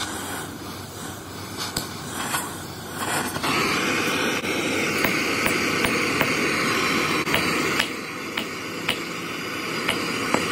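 Oxy-acetylene torch flame hissing steadily from about three seconds in, heating a seized wheel bearing inner race on the hub to loosen it. A run of sharp metallic clicks sounds over the hiss.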